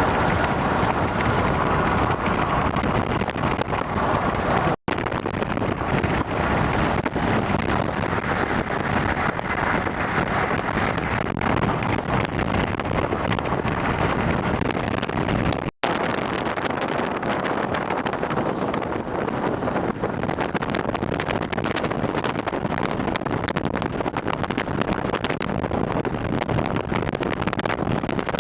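Steady rushing of wind buffeting the microphone, broken twice by a sudden dropout of a split second.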